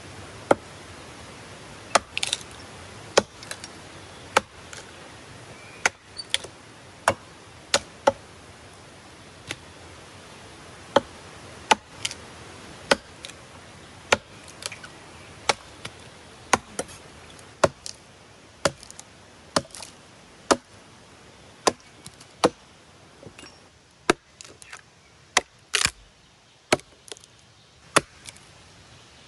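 Hatchet chopping into a weathered split log: a steady run of sharp blows about one a second, some coming in quick pairs, as a notch is cut into the wood.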